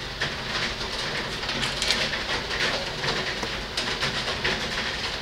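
Rain pouring down, a steady hiss with many irregular sharp taps of drops striking hard surfaces close by.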